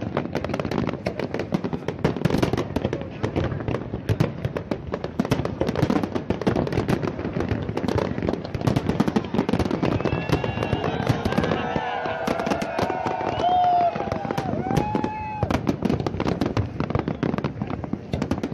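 Large fireworks display: a dense, unbroken barrage of bangs and crackling from many shells bursting at once.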